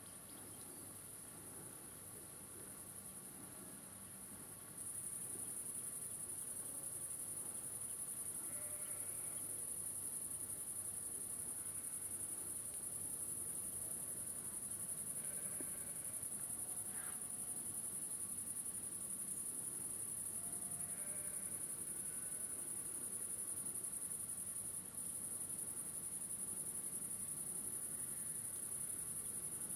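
Crickets chirring steadily in high, continuous meadow chorus, growing louder about five seconds in, with a few faint short calls from other animals in the background.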